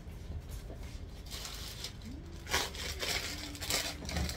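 Rustling and crinkling of garments being handled, in a short stretch about a second in and a longer one from about halfway.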